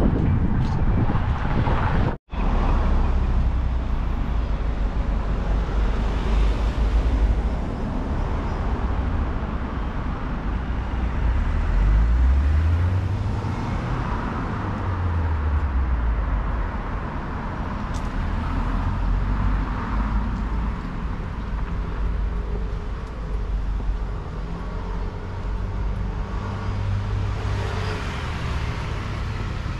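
Road traffic noise: a steady low rumble of vehicle engines and tyres, with one engine note rising and falling near the middle. The sound cuts out for an instant about two seconds in.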